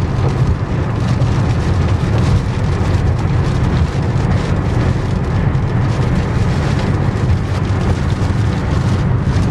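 Loud, steady rumble of a car on the move: road and wind noise, with faint crackles running through it.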